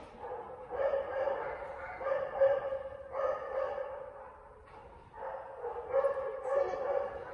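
A dog in a wire crate vocalizing repeatedly: about half a dozen drawn-out, steady-pitched calls, each half a second to a second long, with a longer stretch of calling near the end.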